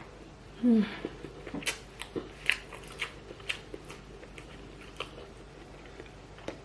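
A person chewing and biting food close to the microphone, with irregular wet mouth clicks and small crunches. There is a brief voiced sound about a second in.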